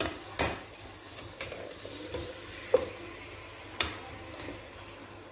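Slotted spoon stirring marinated chicken pieces in an enamel pot, knocking and scraping against the pot about five times, over a faint sizzle as the chicken fries in its masala.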